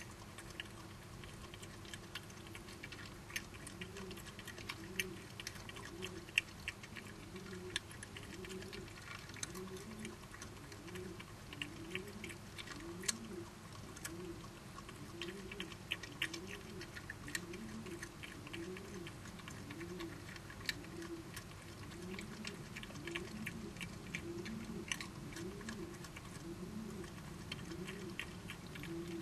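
Badgers eating, with faint crunching clicks as they chew. Under them runs a low sound that rises and falls in pitch a little faster than once a second.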